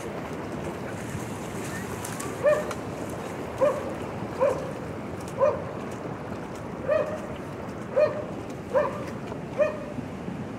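A dog barking eight times, roughly once a second, starting about two seconds in, over the steady rush of floodwater.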